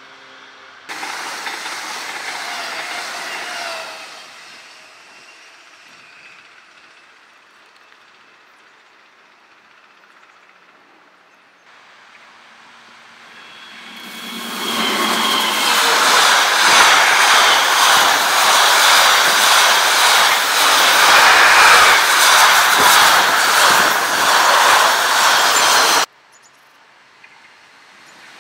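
Passing trains on an electrified railway, heard in separate cuts. The loudest is a DB Class 185 electric locomotive and its train going past close by: a dense, loud rattle with wheels clicking steadily over the rails. It builds for a couple of seconds before its peak and cuts off suddenly near the end. A quieter train noise fades away in the first few seconds.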